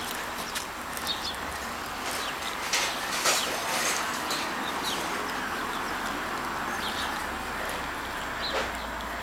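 Outdoor ambience: a steady hiss with short, scattered bird chirps and a cluster of louder rustles about three seconds in.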